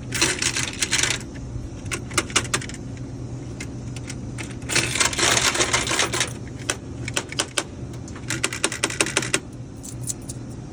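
Coins and a vending machine's coin mechanism clicking and rattling as a minor coin jam is cleared by hand. The clicking comes in bursts, the densest near the start and again about five seconds in, over a steady low hum.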